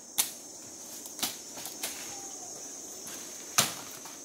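Three sharp cracks, the last about two seconds after the second, over a steady high insect drone.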